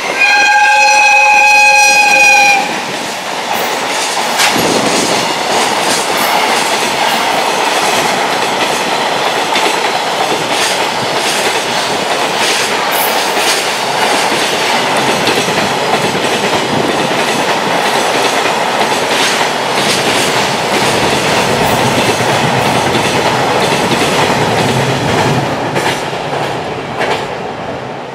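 JR Freight EF210 electric locomotive sounding its horn, one steady blast of about two and a half seconds at the start. Then its container train passes, the wagon wheels clattering over the rail joints in an irregular run of sharp clicks over a steady rumble that fades near the end.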